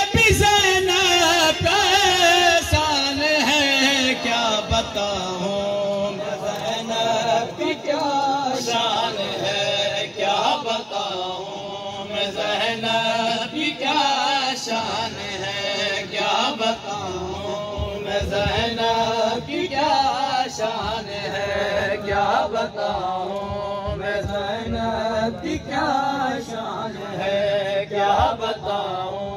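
Men chanting a devotional Urdu manqabat, a slow, wavering sung melody.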